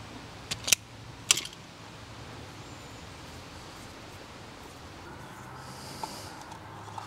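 Draper automatic wire stripper clicking as its jaws snap closed and spring open on thin wires: a few sharp clicks in the first second and a half. Later comes faint rustling and small ticks of the wires being handled.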